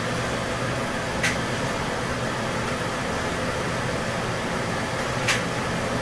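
Electrolux LTM16 Direct Drive top-load washing machine spinning its basket with a load of clothes: a steady whir over a low hum, the spin that drains the wash water before the first rinse fill. Two light clicks, about a second in and near the end.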